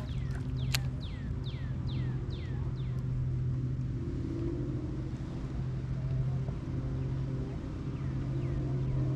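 A steady low motor hum, with a bird whistling a quick series of about six downslurred notes in the first three seconds and two faint ones near the end.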